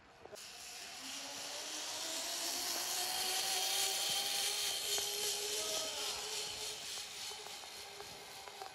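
Zipline trolley pulley running along its steel cable: a steady whirring hiss that builds over the first few seconds and eases slightly near the end.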